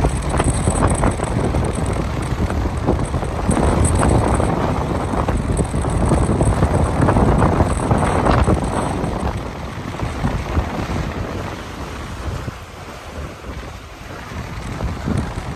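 Wind buffeting the microphone over small lagoon waves washing onto shoreline rocks. The noise swells and eases, louder in the first half and dropping back after about ten seconds.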